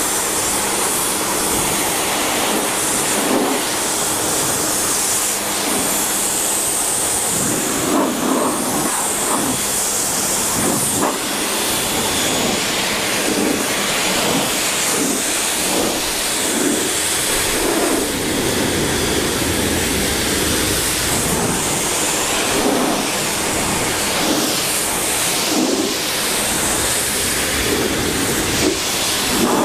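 Pressure washer spraying a steady jet of water, rinsing car-shampoo foam off a pickup truck's painted panels. The hiss of the spray changes a little as the jet sweeps over different surfaces.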